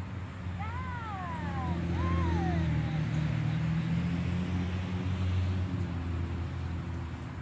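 Low, steady hum of a motor vehicle engine that swells after the first second or two and eases off near the end. In the first three seconds there are two short falling high-pitched calls with overtones.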